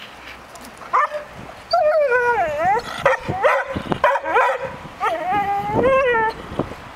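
Dog barking and yelping in a run of high, whining calls that swoop up and down in pitch, starting about a second in.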